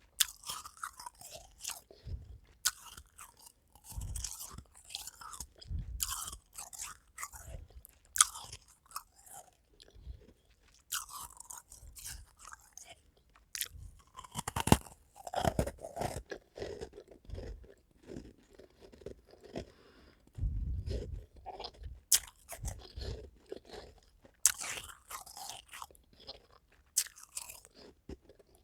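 A person biting and chewing powdery white ice, a run of irregular sharp crunches and crackles with quieter chewing between them.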